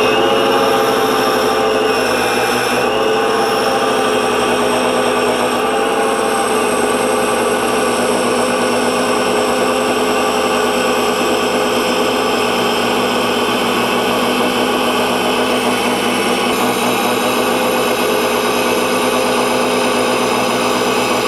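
Gemini Taurus 2 ring saw running steadily, its thin diamond separating blade cutting a curve through a glass disc under its water feed.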